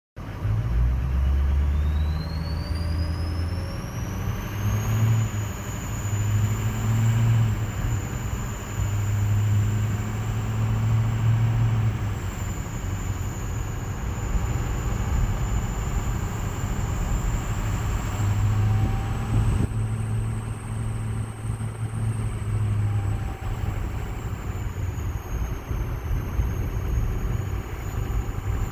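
Ford 6.0 Power Stroke V8 turbodiesel running, its turbocharger whistling. The whistle rises in pitch over the first few seconds as the turbo spools up, then holds as a high steady whine that wavers slightly, over the engine's low rumble.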